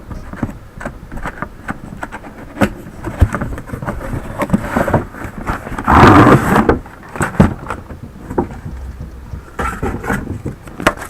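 Handling of a toy's retail packaging: scattered rustles, clicks and knocks, with a louder rustling scrape about six seconds in.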